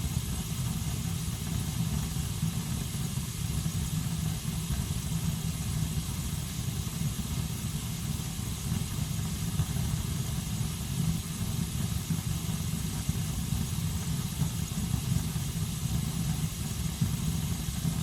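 A home heater running: a steady low rumble with a faint hiss above it.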